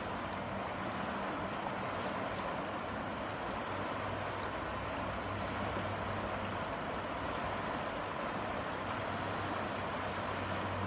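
River current flowing past the bank, a steady even rush of moving water.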